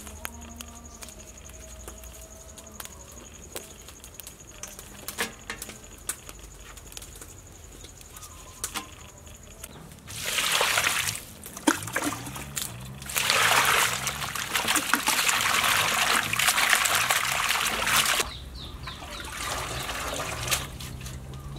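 Water poured from a plastic container into a metal bowl of leafy greens, in two pours about halfway through, the second one long and steady, then the greens swished and rinsed by hand in the water. Before the pour, faint snaps and rustles of leaves being stripped from their stems.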